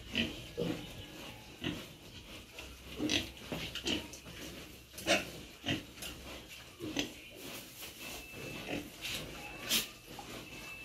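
Pigs grunting, in short irregular bursts.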